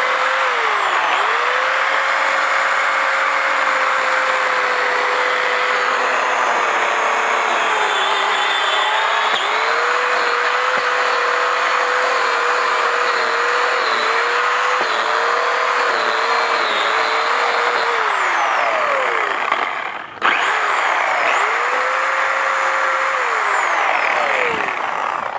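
Portland electric pole saw's motor and chain running, its whine sagging and wavering in pitch as the chain cuts into pine branches. It winds down and stops about 20 seconds in, then spins up again briefly and winds down near the end.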